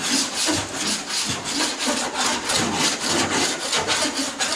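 Body file being floated lightly across a sanded steel car door panel, a steady run of short rasping strokes. This is a check for high metal before filler: high spots would show up as louder contact, and here the file only touches in a few spots.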